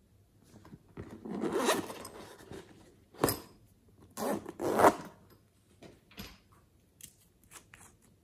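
Zipper of a toy character pouch being pulled open in two loud, quick strokes, with handling rustle before it and a few small clicks afterwards.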